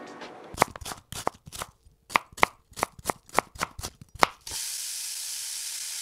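A knife chopping on a cutting board, about a dozen quick, uneven strokes with a slight ring, then a steady sizzling hiss of food frying in a hot pan from about four and a half seconds in.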